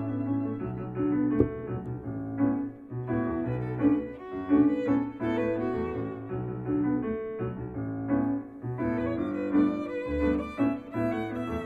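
Violin playing a melody in held notes, over an accompaniment with piano and a low bass line.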